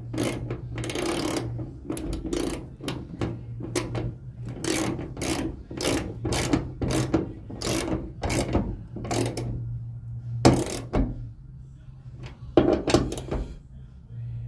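Socket ratchet clicking in repeated short strokes, about two a second, as the hinge bolts are tightened down, with a pause of a second or so before a last few strokes.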